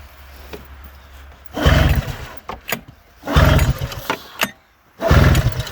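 Straight-piped, unmuffled two-stroke snowmobile engine of a 2000 Arctic Cat ZL440 being pull-started: three short loud bursts of firing, each dying out after under a second, as it fails to catch and keep running. The owner takes it to need fuel put into the cylinders.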